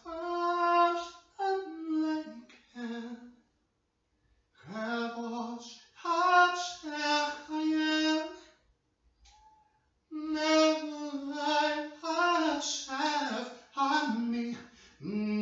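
A man singing unaccompanied: long held notes high in his voice, in phrases broken by short pauses about four and nine seconds in.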